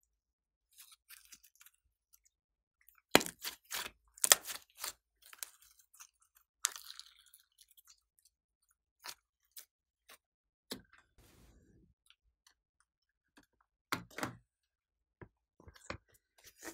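Glossy slime squeezed and stretched by hand, giving sticky crackles and pops in short bunches, loudest about three to five seconds in and again near fourteen seconds.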